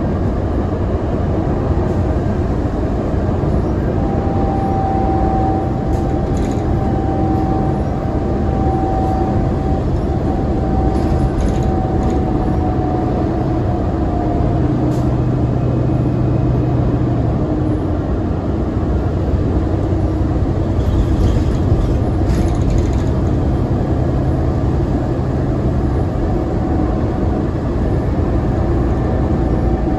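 Onboard a 2012 New Flyer D60LFR articulated diesel bus cruising at speed: its Cummins ISL9 engine and Allison B500R automatic transmission run steadily under road and tyre noise. A faint whine drops slightly in pitch from about four to ten seconds in, and a few light rattles come through.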